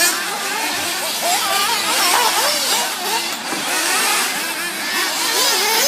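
Several RC race buggies running on the track together, their motors revving up and down, with many overlapping rising and falling whines.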